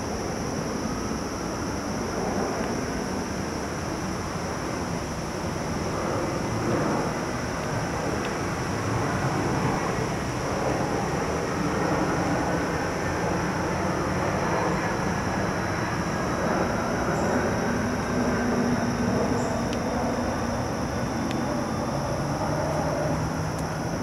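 Steady outdoor woodland ambience: a low rumble of distant city traffic with a continuous high-pitched drone of insects over it.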